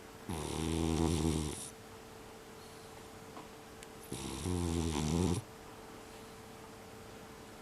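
A cat snoring in its sleep: two long snores about four seconds apart.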